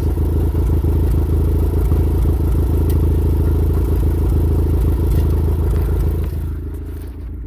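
Kubota engine running steadily, heard close with the machine's vibration carried into the microphone; it gets quieter near the end.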